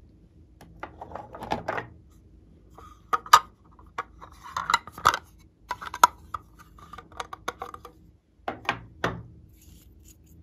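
Irregular clicks and knocks of hard plastic as a pink plastic cosmetics case is opened, a lip gloss tube is taken out and its cap is pulled off.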